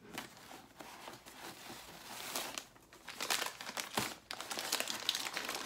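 Gift wrapping crinkling and rustling as a parcel is unwrapped by hand: irregular crackles, sparse at first and denser and louder from about three seconds in.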